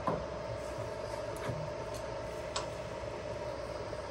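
MAS VR6A radial drill running with a steady mechanical hum as its spindle power-feeds downward. A sharp click right at the start as the feed lever is engaged, then two lighter ticks.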